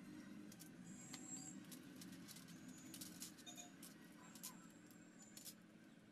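Faint, scattered light clicks and taps of aluminium LED backlight strips being handled and laid into a metal ceiling-light panel, over a faint steady low hum.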